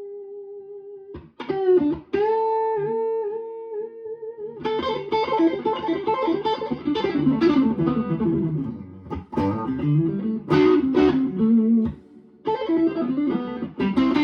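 Electric guitar, a PRS with its new pickups, played on the neck pickup with a very clear tone. A held note fades, then a few notes with vibrato, then from about four and a half seconds a busier run of chords and single notes, with a short break near the end.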